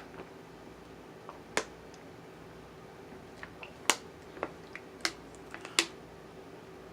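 A handful of short, sharp clicks and smacks at irregular intervals, the loudest about four seconds in and near the end; no burp is heard.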